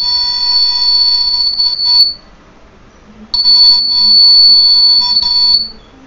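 A 12-volt alarm buzzer sounding a steady high-pitched tone, stopping about two seconds in, then sounding again for about two seconds before cutting off. It is the alarm going off because the IR sensor no longer detects the purse in its place.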